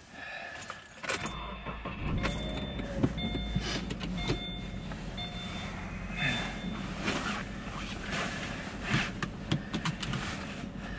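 Car engine starting about a second in and then idling. A dashboard warning chime repeats about every 0.7 s for several seconds, with scattered clicks and handling noise around the cabin.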